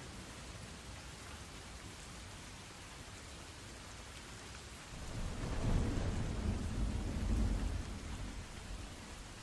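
Steady rain with a roll of thunder that swells about five seconds in and rumbles for a few seconds before fading.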